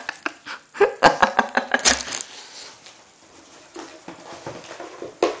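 Rustling and knocking of hands handling things while rummaging in a box. The noise is busiest in the first two seconds, goes quiet, and ends with a sharp knock.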